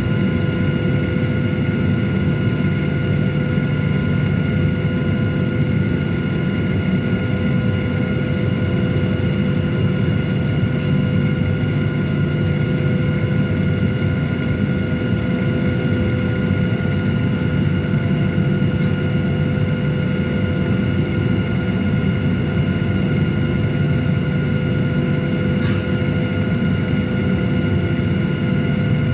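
A Boeing 737-800's CFM56-7B jet engines idling, heard from inside the cabin: a steady low hum with several steady whining tones above it, unchanging throughout.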